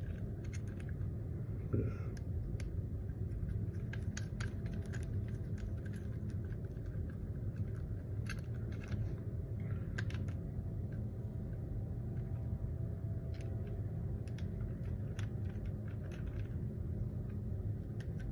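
Small metal parts of a keypad door lock clicking and tapping as the lock is reassembled by hand: irregular light clicks, a few every second, over a steady low rumble.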